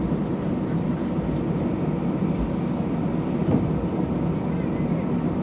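Steady low rumble in the cabin of an Airbus A320 waiting for takeoff, with the engines and cabin air running.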